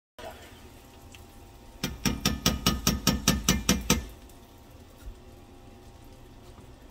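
A quick, even run of about a dozen sharp metal taps lasting about two seconds: a stick immersion blender's shaft being knocked against the rim of an enamelled cast-iron pot to shake off thick puréed soup.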